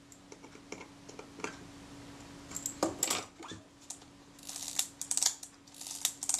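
Small metallic clicks and scrapes of a screwdriver tightening tiny screws on a metal camera body, then the body being handled and turned over, with two busier clusters of clicks about three and five seconds in. A faint steady hum sits underneath.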